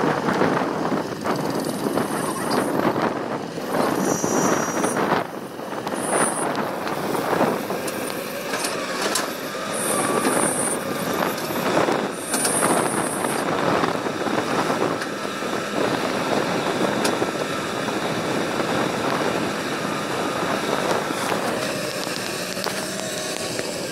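Komatsu excavator working, its diesel engine running steadily under repeated knocks and clanks, with a thin steady whine through the second half.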